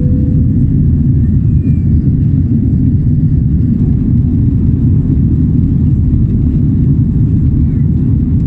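Airliner cabin noise: a loud, steady low rumble of engines and airflow, unchanging throughout.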